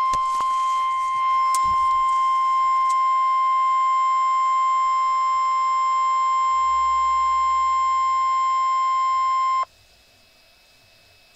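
NOAA Weather Radio's 1050 Hz warning alarm tone: one loud, steady beep lasting about ten seconds that cuts off suddenly near the end, leaving a faint hiss. It signals that a warning message follows, here a severe thunderstorm warning.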